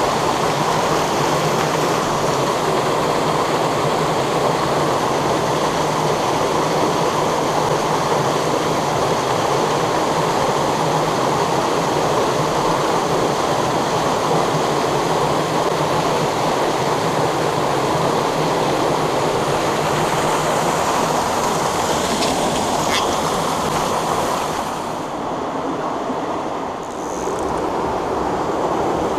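Small waterfalls pouring into a rocky mountain pool: a loud, steady rush of falling water, easing slightly for a moment near the end.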